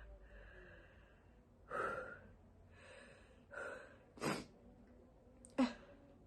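A person stifling sneezes to stay quiet: a few short breathy sounds, then two short, sharp stifled sneezes about four and five and a half seconds in, the second the loudest.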